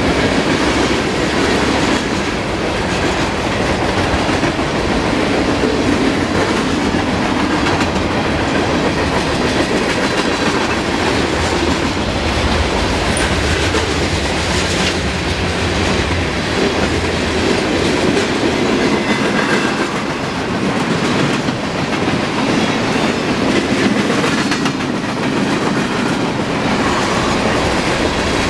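Freight train rolling past at speed: steel wheels running on the rails, a loud steady rumble with rapid clicking.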